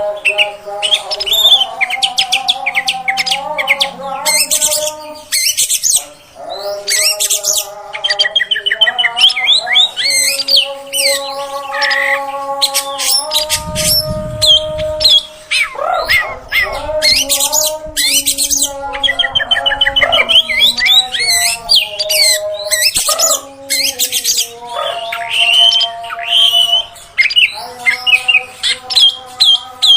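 Oriental magpie-robin (kacer) singing a continuous, rapid, varied song of chirps, trills and whistled phrases, with short pauses.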